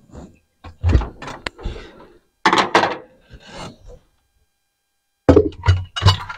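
Irregular clunks, knocks and scraping of metal parts being handled inside a partly disassembled 454 big-block V8. The sounds come in bursts, with a pause of a second or so before a final run of sharp knocks.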